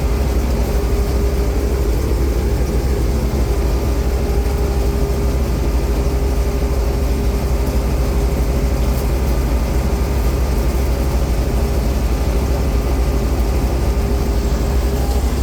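Combine harvester running steadily under way: an even low engine drone with the constant hum of its threshing machinery, unchanging throughout.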